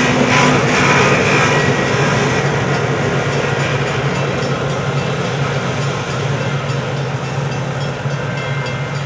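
EMD F7 diesel-electric locomotives with a train, engines droning steadily over rumbling wheels on rail. The sound fades gradually as the train moves away. Faint, evenly spaced dings of a grade-crossing bell come through in the second half.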